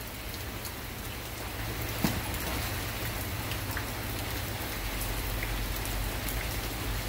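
Steady rain falling and pattering on the ground, a little heavier after about two seconds, with a single sharp tap about two seconds in.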